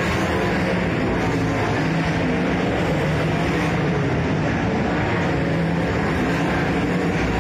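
Speedway sprint cars' methanol-fuelled V8 engines running hard around the dirt oval, the engine note rising and falling as the cars go through the turns and down the straights. Loud and continuous throughout.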